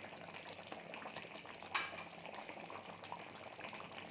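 Chicken curry simmering in the pan, a steady soft crackling bubble, with one sharp clink a little under two seconds in.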